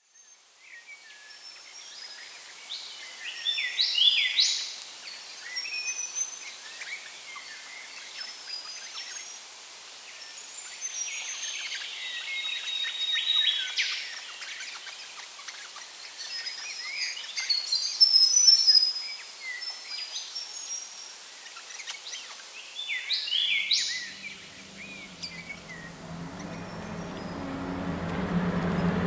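Wild birds calling and singing in eucalypt bushland: a chorus of short chirps and whistles, with a louder burst about 4 seconds in and again near the middle. In the last few seconds a low engine hum swells in underneath.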